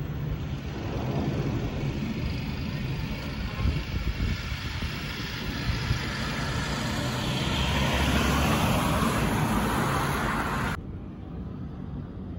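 Distant rumble of an Airbus A319-132's IAE V2500 jet engines as the airliner passes high overhead. It swells over several seconds and then drops off abruptly about eleven seconds in.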